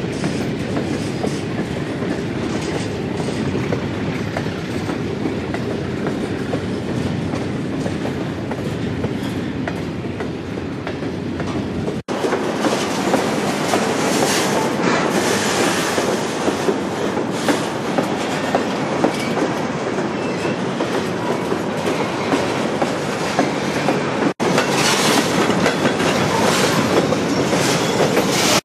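Freight train of covered hopper cars rolling past close by: steady rail rumble with steel wheels clicking over rail joints and track work. The sound drops out abruptly twice, about 12 and 24 seconds in.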